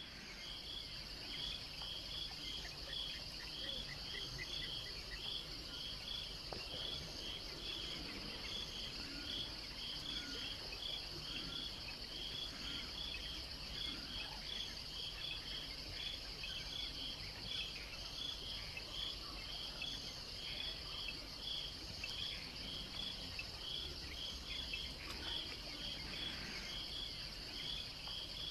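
Insect chorus in grassland: a steady high-pitched drone with a regular, quick chirping laid over it, unchanging throughout.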